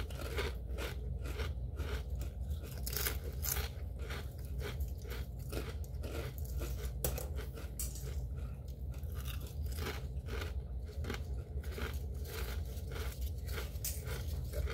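Two people chewing extra-crunchy kettle-cooked potato chips close to the microphone: a dense, irregular run of sharp crunches, over a steady low hum.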